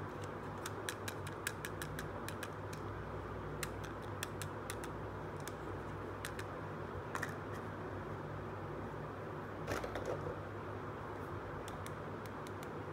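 Small hard plastic toy pieces being handled, with many short sharp clicks and taps and a louder clatter about ten seconds in, over a steady low background hum.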